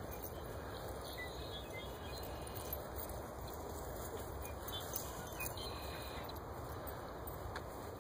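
Steady outdoor background noise, with a few faint, short bird calls in the distance.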